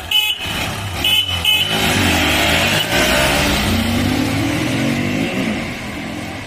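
Three short honks from a motorcycle horn as the start signal. The motorcycles (Hero Xtreme 125R, Xtreme 200S and Yamaha R15) then accelerate hard off the line, their engine notes rising through the gears before fading as they pull away.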